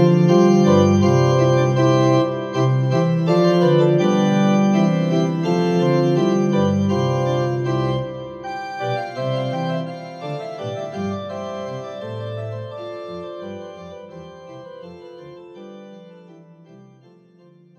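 Organ music playing held chords after the service's closing blessing, steady for about eight seconds and then fading gradually until it dies away at the end.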